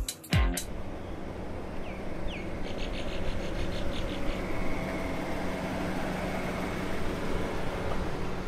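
Outdoor ambience: a steady low hum under a wash of background noise, with a few faint bird chirps about two to four seconds in. It opens with a short sharp hit from the end of the intro sound effect.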